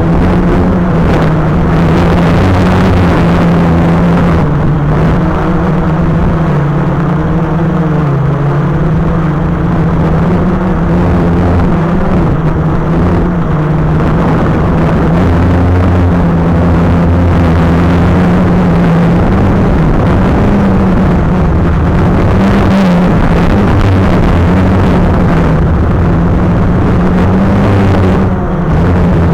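Quadcopter drone's motors and propellers whirring steadily in flight, a loud hum whose pitch wavers slightly as the throttle changes.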